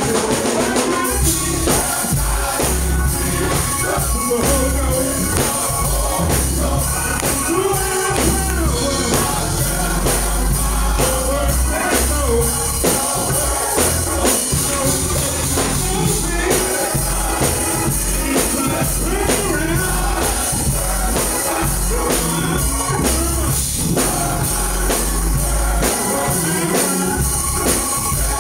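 Male gospel chorus singing with a lead soloist on microphone, backed by a steady bass line, drums and tambourine.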